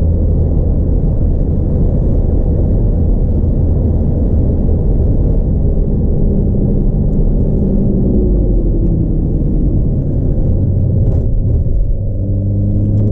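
Car engine and tyre and road rumble heard from inside the cabin while driving at speed on a race circuit; the engine note stays fairly steady, then dips and changes pitch briefly about twelve seconds in.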